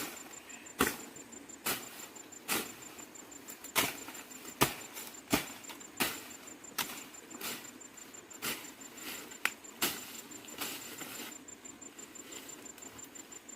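A series of sharp knocks, roughly one strike every three-quarters of a second, somewhat uneven in spacing and strength, stopping a couple of seconds before the end.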